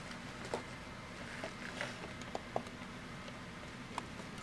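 Quiet room tone: a steady low hum with a few scattered small clicks and taps.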